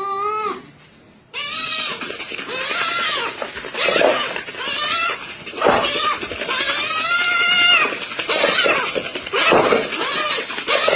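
Kitten meowing over and over in high, wavering mews, one call ending just after the start and then calls following one after another almost without a break from about a second and a half in.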